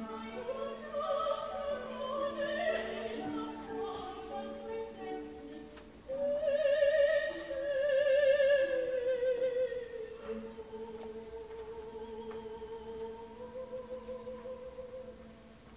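Coloratura soprano singing an opera aria over instrumental accompaniment. A loud phrase with wide vibrato begins about six seconds in, then eases into softer sustained notes that fade near the end.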